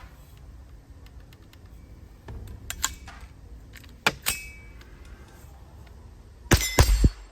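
Scattered metallic clicks and clinks of the rifle and its magazine being handled, then about a second before the end a quick string of several shots from a JP-15 .22 LR semi-auto rifle, with steel plate targets ringing.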